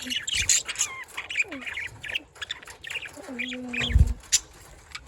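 A flock of budgerigars chirping and chattering in quick, overlapping short calls, busiest in the first couple of seconds. A dull low thump comes about four seconds in.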